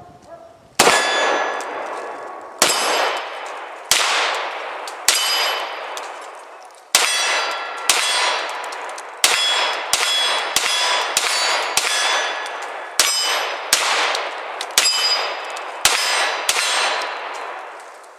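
A string of about eighteen 9mm shots from a CZ P01 compact pistol, fired one after another about a second apart, the first in double action and the rest in single action. Each shot rolls off through the woods, and clear ringing tones follow from steel targets being hit.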